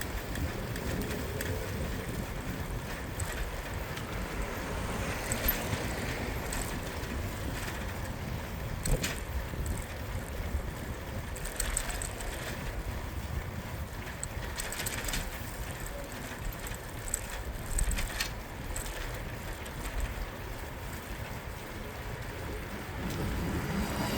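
Wind rushing over the microphone and tyre noise from a moving bicycle, a steady low rumble, with scattered short clicks and rattles. Faint city traffic may lie underneath.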